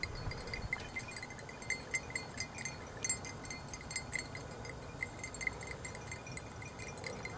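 Small bell on a hunting hound's collar ringing faintly, in quick uneven jingles, as the dog moves through the scrub; the tinkling lets the hunter follow where the dog is working.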